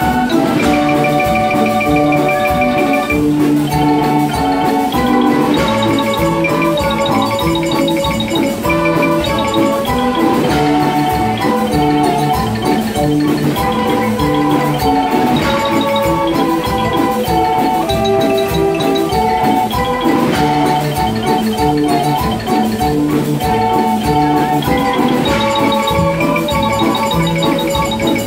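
Several hand-cranked barrel organs playing a tune together: held pipe-organ notes over a steady beat, with short, repeated, high chiming notes.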